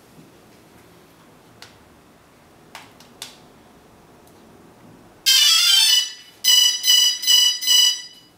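A DJI Phantom 2 quadcopter powering up: a couple of faint clicks as it is handled, then about five seconds in a loud quick run of electronic tones, followed by about five short beeps.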